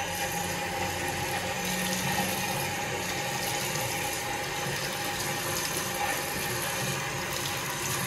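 Bathroom tap running steadily into a washbasin while a person splashes water on their face.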